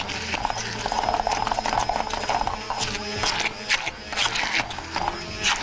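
Hand blender motor running in a glass bowl, chopping feta cheese, olives, pickled onions and garlic into a paste, with uneven clattering as the blade works through the chunks. The motor whirr is strongest in the first half.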